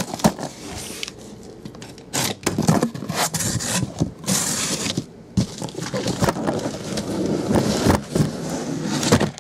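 Cardboard shipping case being handled and opened: flaps scraping and rustling, with irregular knocks as the sealed hobby boxes inside shift against the cardboard. It eases off briefly about a second in and again about five seconds in.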